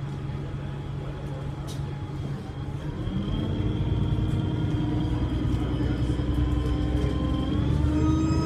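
Alexander Dennis Enviro300 bus engine under power, with a thin turbo whistle over a low engine drone. About three seconds in it gets louder as the engine pulls harder. Near the end the whine tones climb and new high whistle tones come in.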